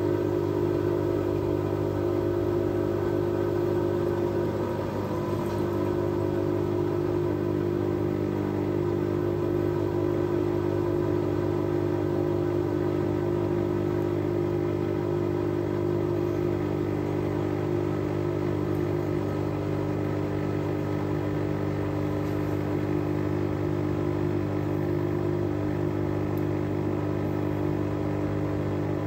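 Fisher & Paykel WL8060P1 washing machine running mid-cycle with a steady motor hum made of several held tones, which shift slightly in pitch about five seconds in.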